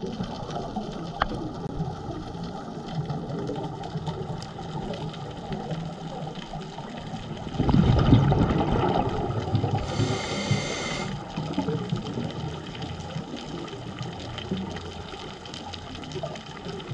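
Muffled underwater noise picked up through a camera housing, with a scuba diver's regulator breathing: a louder rush of exhaled bubbles about halfway through and a short hiss just after.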